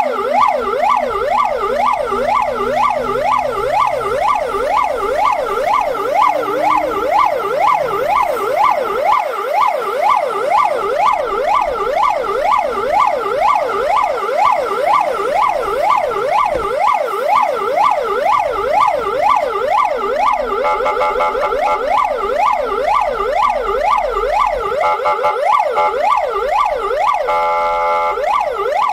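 Fire truck's electronic siren sweeping rapidly up and down, about two to three times a second. It switches twice to a steady tone for about a second, once about two-thirds of the way in and again near the end.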